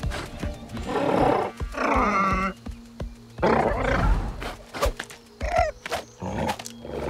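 Cartoon soundtrack: background music under several short animal-like cries or roars with wavering pitch.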